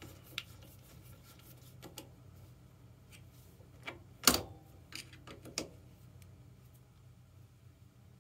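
Scattered light clicks and knocks of metal parts and hand tools being handled while fitting an e-bike's passenger foot peg, with one sharper knock about four seconds in.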